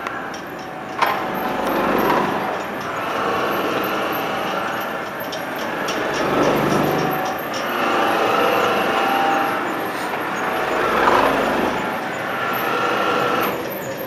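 Demonstration model of a locomotive's flexible drive between traction motor and axle running, its big gear wheel and linkages turning with a mechanical rumble and whir. The noise swells and fades about every two seconds, in step with the wheel's slow turning.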